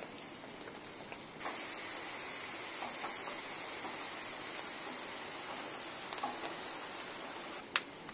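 A steady high-pitched hiss starts abruptly about a second and a half in and slowly fades, followed near the end by two sharp clicks of a hand lighter being struck.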